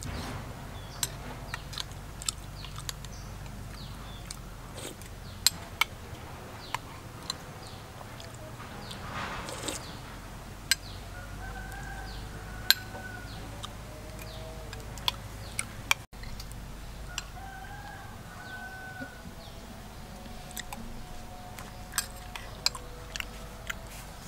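Eating sounds: a metal spoon clicking against a ceramic bowl, with slurps and mouth sounds as spoonfuls are taken. A rooster crows twice in the background, about halfway through and again a few seconds later.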